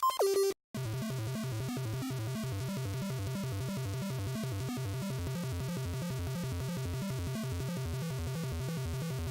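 Background electronic music. A bleepy game-style melody ends just after the start, and after a short gap a steady, fast-repeating electronic loop with a low pulsing bass takes over.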